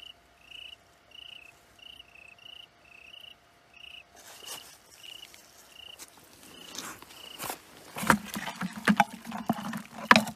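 A night insect chirping in short, even pulses about twice a second, then rustling and wet handling noises as a hand digs an eel out of a muddy hole, growing louder, with sharp knocks near the end.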